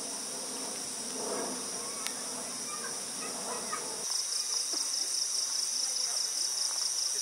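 Night insects trilling steadily and high-pitched. About four seconds in the chorus grows louder, with a rapid pulsing chirp.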